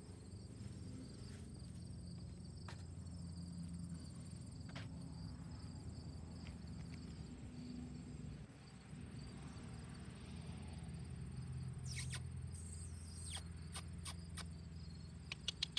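Insects chirring steadily in the background over a low rumble, with a quick run of sharp clicks near the end.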